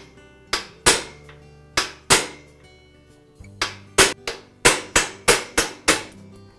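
Hammer striking a pin punch to drive the steel roll pin out of a Black & Decker Workmate vise crank arm: about a dozen sharp taps in uneven groups, ending in a quicker run of five. Light background music plays underneath.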